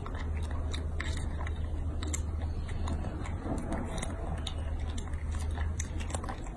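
Baby macaque biting and chewing a strawberry: many small wet clicks and smacks scattered through, over a steady low hum.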